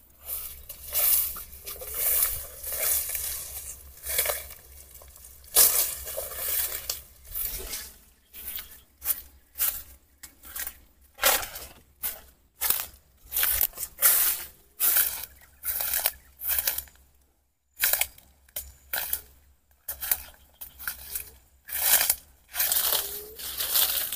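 Footsteps crunching and rustling through dry leaves and undergrowth, about one to two steps a second.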